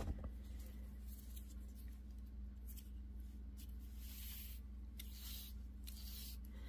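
Faint, soft rustles of hands handling thread and paper on a craft table, with a light knock at the start, over a steady low hum.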